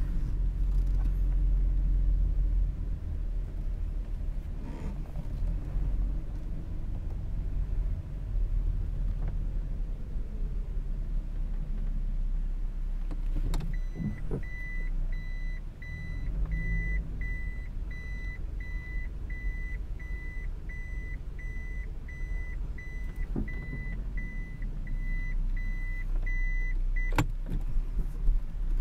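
Toyota Aristo's 2JZ-GTE twin-turbo straight-six running at low speed, heard as a low rumble inside the cabin. About halfway through, an electronic warning beep sounds about twice a second for some thirteen seconds, starting and stopping with a sharp click.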